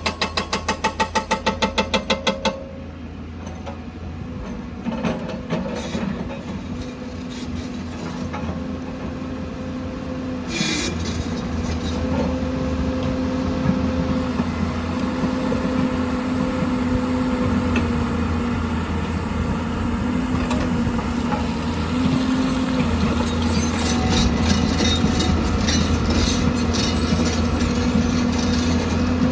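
Heavy diesel machine, an excavator, running with a steady drone that grows slowly louder. For the first two seconds there is a rapid, even pulsing, and scattered metallic clanks and scrapes come through later on.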